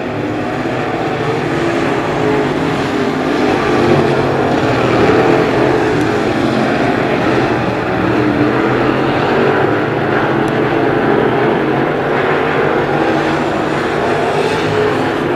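Crate Late Model race cars running laps in a heat race, their V8 engines making a loud, steady drone.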